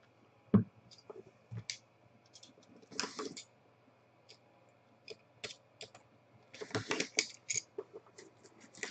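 A box of trading cards being opened and its contents handled: scattered light clicks, taps and rustles of the packaging. They are busiest about three seconds in and again around seven seconds.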